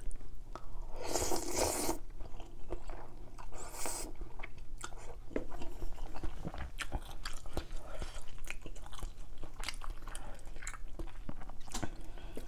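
Close-miked eating of noodle soup with palo-braised chicken: a long slurp about a second in and a shorter one near four seconds, then steady chewing with small wet clicks.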